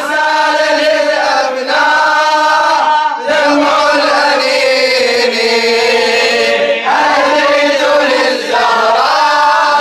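Male religious elegy chanting: a radood's voice holding long, drawn-out notes in phrases of a few seconds, gliding between pitches, without distinct words.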